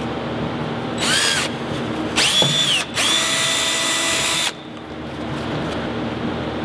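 Electric drill boring out the marked mounting holes in a Nissan 350Z's bumper, in three runs: a short squeeze about a second in, then two longer runs back to back. The motor's whine rises in pitch as each run starts and holds steady while it cuts.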